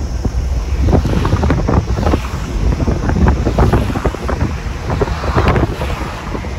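Wind buffeting the microphone, with road rumble, from a moving car: a loud, gusty low rumble.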